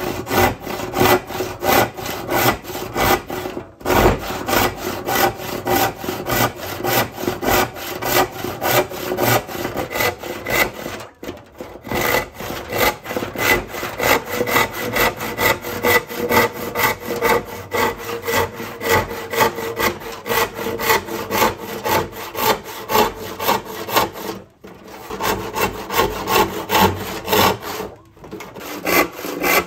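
Handsaw rip-cutting a walnut board along its grain: steady back-and-forth rasping strokes, broken by a few short pauses.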